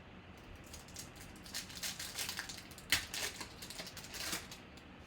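Baseball cards and their pack wrapper being handled by hand: a run of short crinkles, scrapes and clicks through the middle, the sharpest click about three seconds in.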